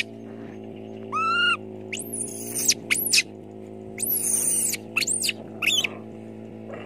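Baby monkey crying: a string of short, high-pitched squealing calls, each rising and falling, with one lower call about a second in. A steady low hum runs underneath.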